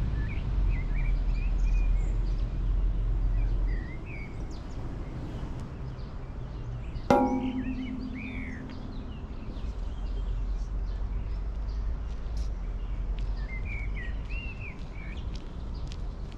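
Birds chirping over a steady low outdoor rumble, with one sharp clack and brief metallic ring about seven seconds in as a minigolf ball is struck and sent rolling across the green.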